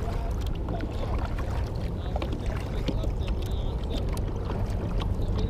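Kayak paddle dipping and pulling through calm water, with small splashes, drips and light knocks, over a steady low rumble.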